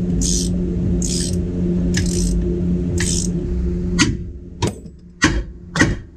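A steady hum with a hissy swish about every three-quarters of a second, then from about four seconds in a run of hammer blows on metal, about four sharp ringing strikes at a bit under a second apart. The blows land at the lower ball joint of the front steering knuckle, to knock the ball joint stud loose from the knuckle.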